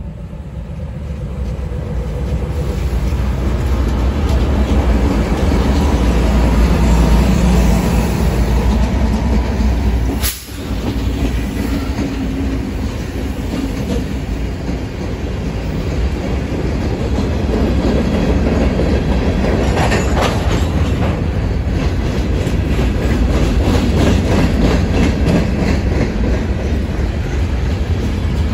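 Freight train passing close by: a consist of CSX diesel locomotives (two GE AC44CWs followed by four EMD GP38/GP40-series units) under power grows louder as the engines come alongside. This is followed by loaded covered hopper cars rolling past, their wheels clicking rhythmically over rail joints. The sound drops out momentarily about ten seconds in.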